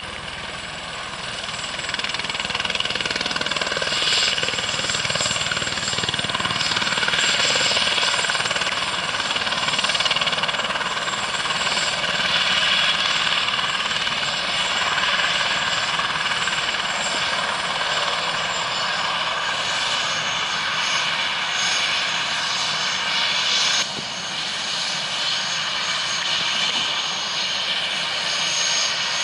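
Airbus H130 (EC130 T2) helicopter running on the ground with its main rotor turning: a steady high turbine whine of several tones over a rushing noise. It grows louder over the first few seconds and drops suddenly in level about 24 seconds in.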